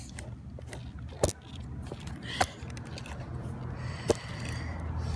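Handling noise from a phone rubbing against clothing, with three sharp knocks spread through it, over a low steady hum.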